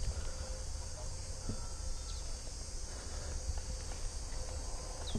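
Outdoor ambience with a steady high insect buzz, over a low rumble on the microphone and a few faint clicks and rustles.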